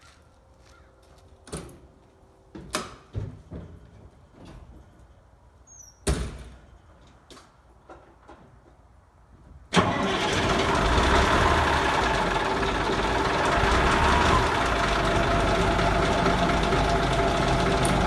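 A few scattered knocks and clicks, then about ten seconds in the Peterbilt 359's big diesel engine cold-starts with a sudden loud catch and settles into steady running.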